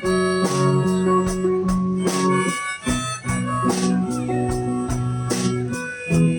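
Live band music: a harmonica playing long held notes over guitar accompaniment, with a steady drum beat.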